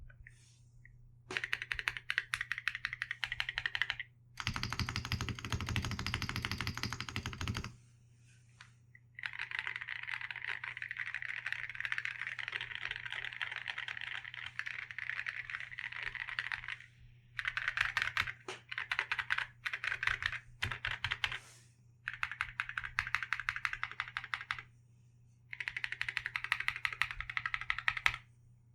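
Keychron Q6 mechanical keyboard with a polycarbonate plate, lubed and filmed WS Morandi linear switches and ceramic Cerakey keycaps, typed on in quick bursts with short pauses between them. One stretch near the start sounds fuller and deeper than the rest.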